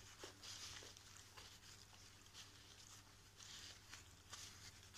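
Near silence with room tone and a few faint, soft rustles.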